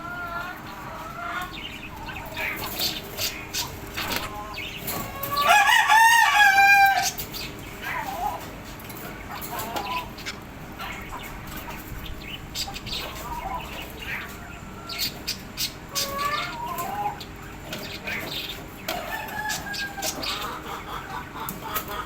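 Birds calling: scattered short calls and clicks, with one loud, drawn-out, wavering call about five seconds in.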